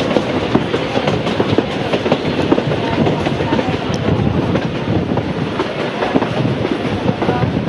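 Heritage passenger carriage running on narrow-gauge track: a steady rumble of wheels on rail, with frequent irregular clicks and rattles from the wheels and the carriage body.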